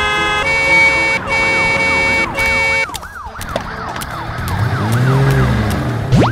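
Cartoon ambulance siren wailing in quick repeated falling sweeps, about three a second. For the first three seconds a synth tune in short held chords plays over it. Near the end a low sound effect rises and falls, and a fast rising whoosh follows.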